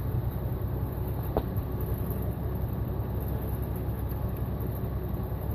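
Steady low rumble of a running engine, with one faint click about a second and a half in.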